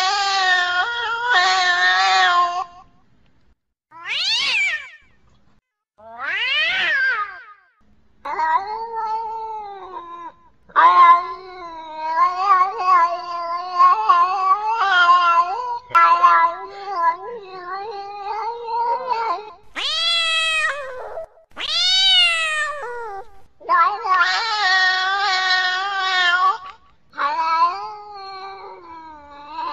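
Female cat in heat yowling: a run of long, drawn-out, wavering caterwauls, the longest lasting several seconds in the middle, broken by a few short, higher calls that rise and fall.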